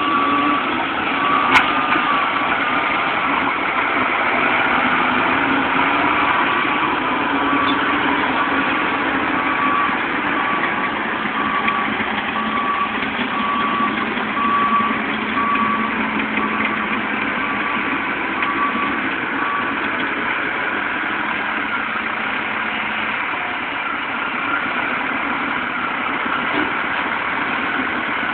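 Diesel engines of heavy earthmoving equipment, a wheel loader working beside a dump truck, running steadily. A backup alarm beeps about once a second until it stops about 20 seconds in, and a single sharp knock comes about a second and a half in.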